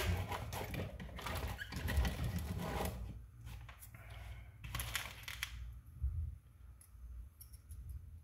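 Small parts and hand tools handled on a workbench: rustling and light clicks through the first few seconds and again about five seconds in, then only a few faint ticks.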